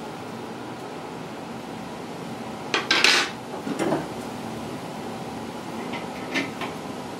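Metal tools clattering against metal: a loud cluster of knocks and rattles about three seconds in, then a few lighter clinks near the end. A steady hum runs underneath.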